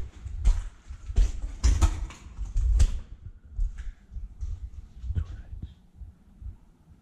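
Footsteps walking through a tunnel, a thud with a gritty scrape on each step, roughly two steps a second; the steps are heavier for the first three seconds, then softer and sparser.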